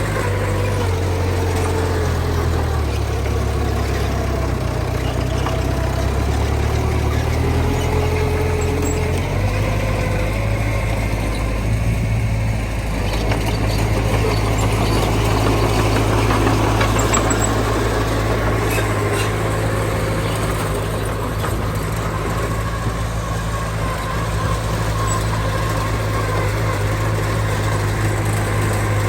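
Heavy diesel engine of earthmoving machinery running steadily, its pitch shifting a couple of times as the machine works.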